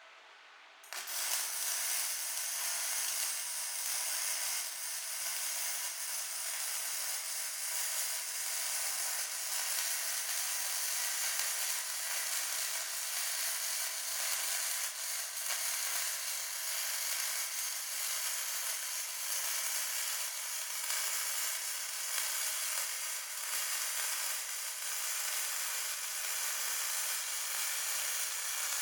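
MIG welding arc from a Sanjoe MIG 350S welder, a steady crackle and sizzle that starts about a second in as the weld is struck and runs on evenly.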